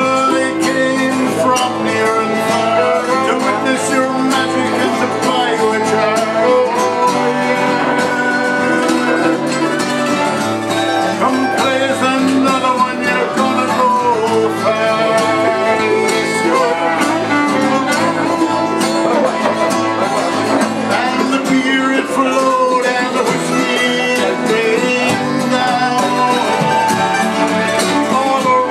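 Acoustic string band playing live: fiddle carrying the melody over strummed acoustic guitar and mandolin, an instrumental passage without singing.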